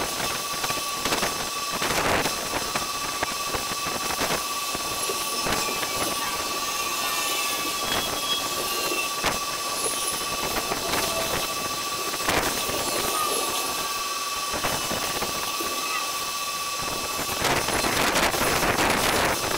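Outdoor ambience sped up twentyfold: a steady noisy wash broken by many short bursts, with a thin steady high tone held throughout. The noise swells louder near the end.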